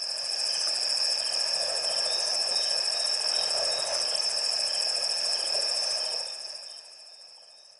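Water sloshing and churning as an elephant bull wades across a river, over a steady high chirring of crickets. The water sound fades away about six seconds in, leaving the crickets.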